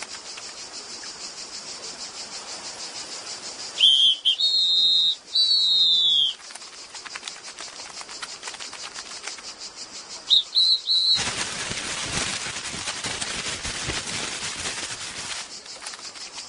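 Steady high insect chirring, cut twice by bursts of short, loud whistled calls, then about four seconds of loud crackling rustle of newspaper being crumpled, starting suddenly and stopping suddenly.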